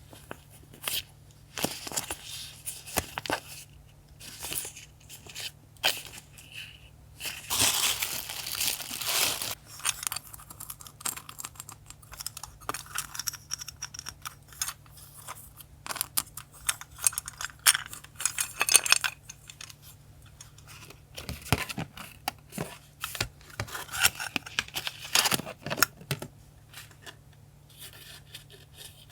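Paper handled up close: tearing and crinkling, with many light taps and clicks in between and a longer stretch of rustling tearing a little over seven seconds in.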